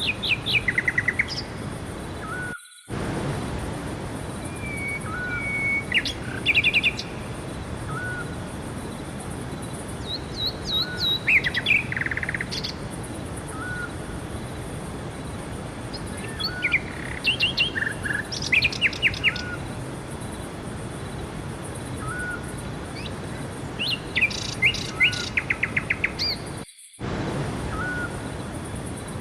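Forest songbirds singing in short trilled phrases every few seconds, with another bird repeating a short chirp every second or two, over a steady background hiss. The sound cuts out briefly twice.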